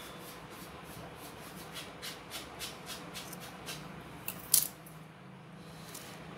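Steel scissors snipping off a crochet yarn tail, with a quick run of light clicks and rustles as the finished piece is handled. One sharp click, the loudest sound, comes about four and a half seconds in.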